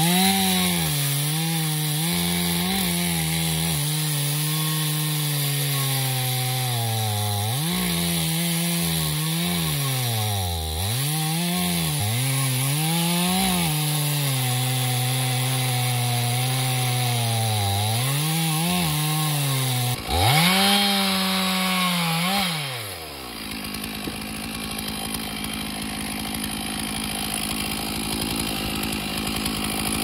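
Chainsaw running at high revs while cutting timber, its engine note sagging and recovering again and again as the chain bogs in the wood. After about twenty-three seconds the engine note falls away and stops, leaving a steady, fainter noise.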